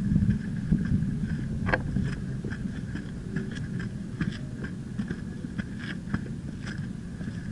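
Wind rumbling on an action camera's microphone held out on a selfie stick, with scattered light clicks and scuffs of handling and footsteps on a rocky dirt trail.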